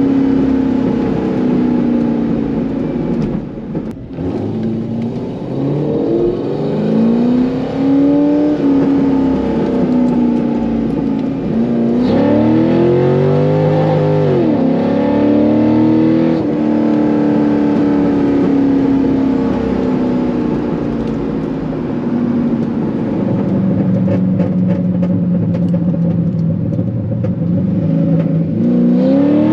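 Chevrolet Corvette C5's 5.7-litre V8 through a Corsa exhaust, out on a drive. The engine note climbs sharply under acceleration several times, dropping back after each pull, and holds steady at cruising speed in between.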